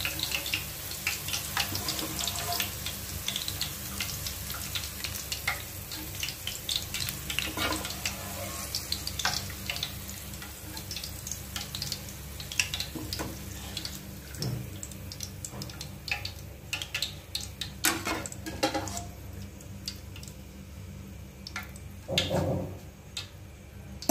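Hot cooking oil sizzling and crackling in a frying pan where sliced chili peppers are frying; the pops grow sparser toward the end, with one louder knock near the end.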